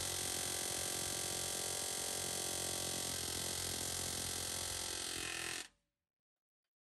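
Pneumatic air hammer with a punch bit hammering rapidly and steadily on a sliced rivet in an old Ford F100's riveted steel frame, driving the rivet out. The hammering stops abruptly about five and a half seconds in.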